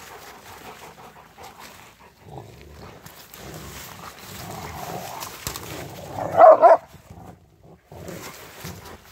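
Rottweilers playing with a fallen branch: twigs and brush crackling as they tug at it, and one short, loud bark about six and a half seconds in.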